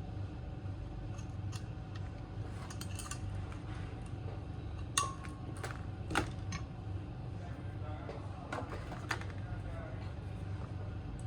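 Scattered light clicks and taps of small metal tools on phone parts during a smartphone repair, the sharpest about five seconds in, over a steady low hum.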